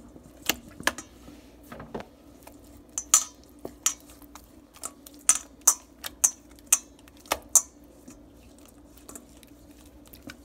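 Hands working marinade into raw filet mignon in a metal pan: irregular sharp clicks and taps against the metal, thickest from about three to eight seconds in, over a faint steady hum.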